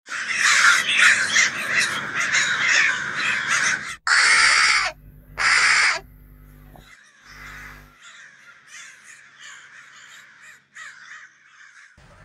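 Crows cawing: a dense chorus of many caws for about four seconds, then two loud single caws, then fainter scattered cawing, and one more loud caw at the very end.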